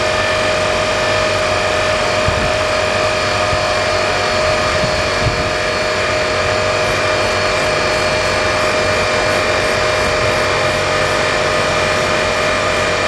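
Truck engine idling steadily, a constant even hum, with a faint, quick high ticking in the second half.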